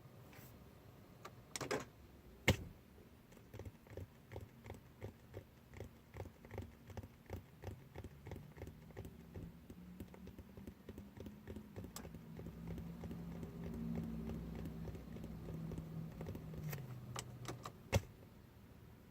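A 2013 Dodge Charger R/T that won't start: a sharp click, then steady clicking about twice a second. A low hum joins partway through, rises in pitch and cuts out near the end, and one more sharp click follows.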